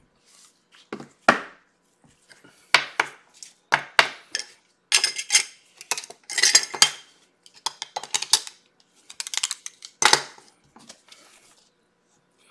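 Clear acrylic card display stands being picked up, moved and set down on a hard tabletop: a series of sharp plastic clacks and rattles, about a dozen in all.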